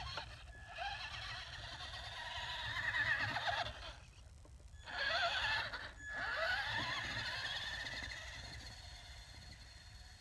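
Traxxas Stampede 4x4 RC truck's electric motor whining, rising and falling in pitch with bursts of throttle. It drops out briefly twice, then fades as the truck drives away.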